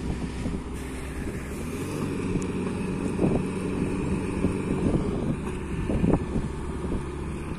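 Isuzu Trooper engine running under load as its rear wheel spins in soft sand, with wind buffeting the microphone.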